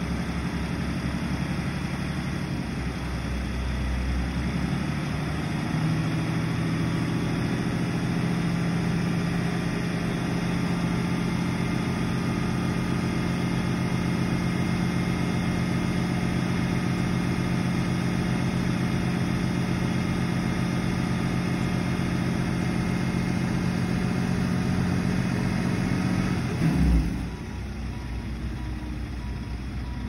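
Heavy concrete pump truck's diesel engine revving up about five seconds in and held at high revs under load, as a truck strains to pull a stuck pump truck out of the mud. Near the end a thump, and the engine drops back to a lower, quieter run.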